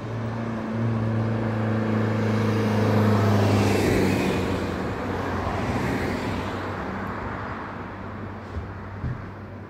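A motor vehicle driving past on the road: a low engine hum and tyre noise grow louder to a peak about three seconds in. The hum drops a little in pitch around four seconds in, then the sound fades away.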